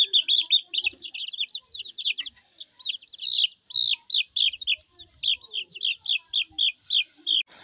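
Young chicken peeping over and over: short, high, falling notes about four a second, pausing for about a second near the start.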